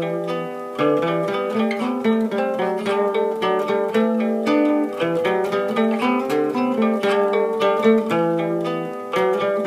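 Old Soviet-made acoustic guitar picked with a plectrum, playing an improvised run of quick single notes and chords.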